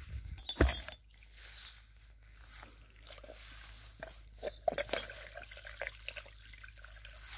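Water dripping and trickling from a garden hose nozzle into grass and leaves, with irregular small clicks and rustles. A sharp knock just under a second in is the loudest sound.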